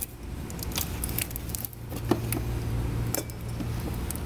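Gloved hands working a ribbed serpentine belt around the alternator pulley: a few light clicks and scuffs of rubber belt against pulleys and brackets, over a steady low hum.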